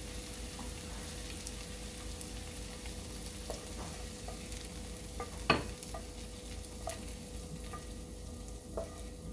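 Onions sizzling in olive oil in a frying pan, with a utensil clicking against the pan as they are lifted out; one sharper knock about halfway through.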